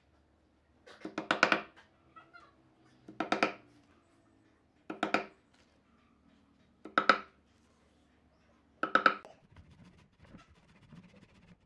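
Claw hammer driving wooden dowels into drilled holes in a pine board: five short bursts of ringing knocks about two seconds apart, the first a quick run of several blows.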